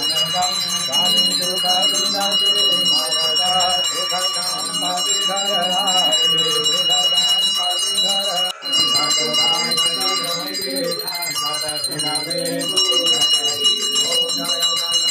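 Puja bell rung without pause during an aarti, a steady high ringing, with voices singing along beneath it. The ringing breaks off for a moment about halfway through.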